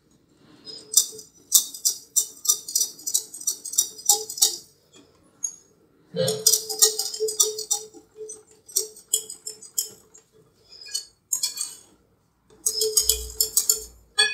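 A metal utensil clicking rapidly against a mixing bowl, as in beating batter by hand. It comes in several bursts of a few seconds each, with short pauses between them.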